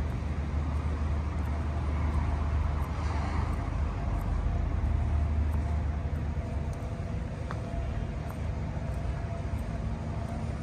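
Steady low rumble of outdoor harbour ambience, with a faint steady hum joining about three seconds in.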